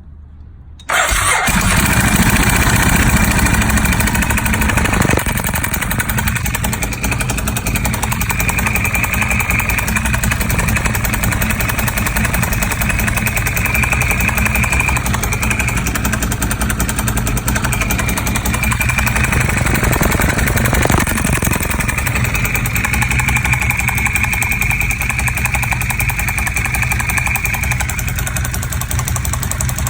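Ducati 1098 superbike's V-twin engine starting abruptly about a second in, then running steadily with a faint high whine coming and going. It is making a noise that the owner calls bad.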